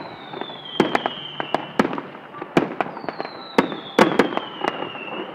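Fireworks display: a rapid, irregular string of sharp bangs and cracks from bursting shells. Two long whistles fall slowly in pitch, one through the first two seconds and another from about three seconds in.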